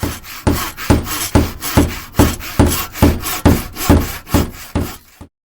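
A hand tool worked back and forth across wood, in even strokes about two a second, stopping abruptly about five seconds in.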